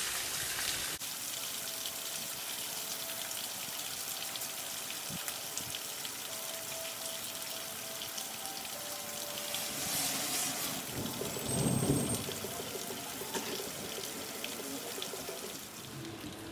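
Heavy rain pouring down outside an open door, a steady hiss, with a brief louder swell about ten seconds in.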